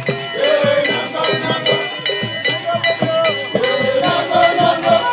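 Live Ekpe ceremonial music: a group singing over a steady, quick percussion beat.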